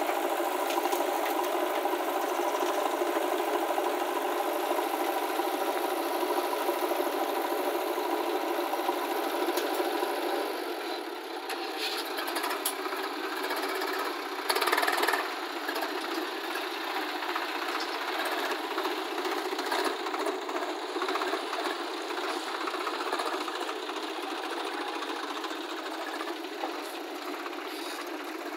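Diesel engines of a Swaraj tractor and a JCB 3DX backhoe loader running with a fast clatter as the tractor moves off pulling a trolley loaded with soil. A steady engine note holds for the first ten seconds, then turns quieter and rougher, with a brief louder rev about fifteen seconds in.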